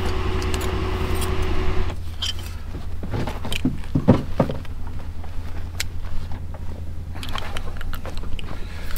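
A vehicle engine idles with a steady low drone. A steadier, higher-pitched running sound stops about two seconds in. Scattered small metallic clinks and knocks follow as lug nuts and tools are handled while a side-by-side's wheel comes off.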